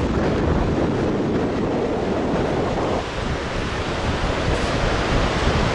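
Steady rushing noise of the Bhote Koshi river's whitewater, with wind buffeting the microphone.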